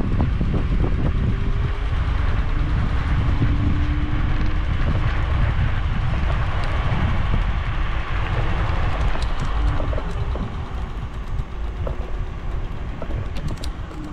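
Steady rumble of a moving vehicle with wind on the microphone, easing a little about two-thirds of the way through, with a few small ticks near the end.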